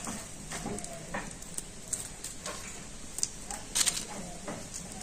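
Scattered light clicks and knocks at irregular intervals as dry-roasted whole spices and dried red chillies are handled and de-stalked by hand, ready for grinding on a stone slab; the loudest knock comes about four seconds in.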